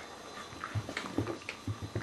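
Two sighthound puppies, an Italian Greyhound and an Ibizan hound, play-fighting, with a series of short, soft whimpering noises one after another.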